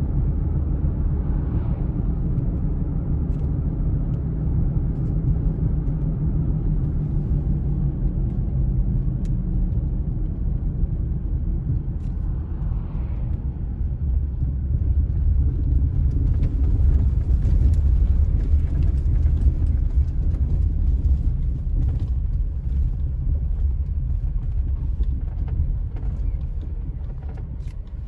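A road vehicle driving, a steady low rumble of engine and road noise that swells somewhat midway and eases off near the end.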